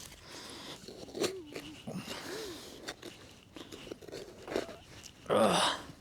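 Digging into soil with crunching and scraping, loudest in a burst near the end, while a metal detector gives a couple of short warbling tones over a target the detectorist takes for large pieces of a tin can.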